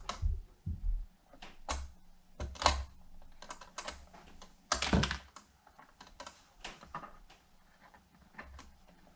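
Irregular sharp clicks and light knocks of small latch hardware being worked by hand as the latch cable is fitted to the saddlebag lock. The loudest knock comes about five seconds in.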